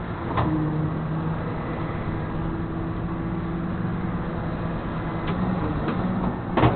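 Flatbed tow truck engine running at a steady speed, a constant hum, with a short sharp click about half a second in and another near the end.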